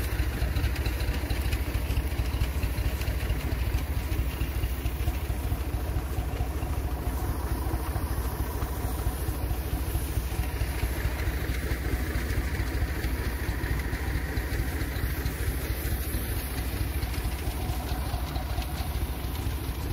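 Tractor engine running steadily at idle with a mounted crop sprayer, an even low engine sound that does not change.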